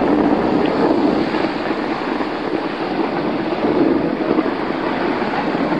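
Steady rush of wind on the microphone, with skis sliding over packed snow while skiing down a piste.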